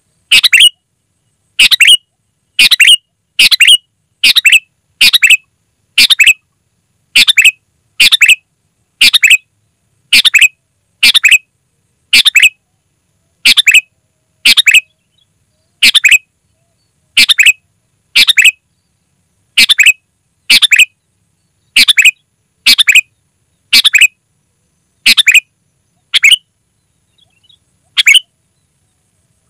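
Sooty-headed bulbul (kutilang) giving loud, short calls, repeated about once a second with silence between. There is a slightly longer pause near the end.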